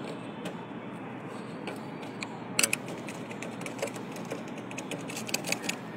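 Thin metal tool picking and scraping at the aluminium fins of an air-conditioner condenser coil that salt-air corrosion has rotted, the brittle metal crumbling off with scattered small clicks and crackles. A sharper cluster of clicks comes about two and a half seconds in, and another near the end.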